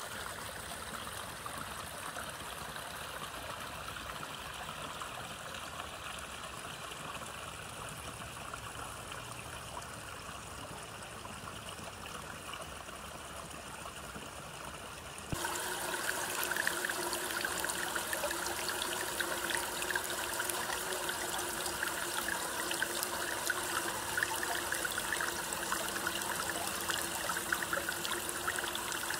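Water running steadily at a micro-hydro stream intake. About halfway through it turns louder and brighter: water gushing out of the end of a plastic feed pipe onto a perforated metal screen on top of a header tank.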